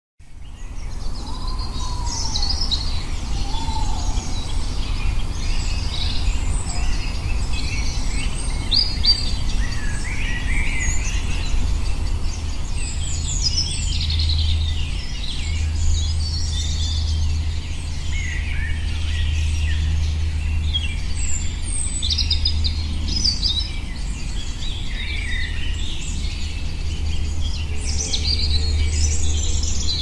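Several songbirds singing and calling in woodland, many short overlapping chirps and whistled phrases throughout, over a steady low rumble.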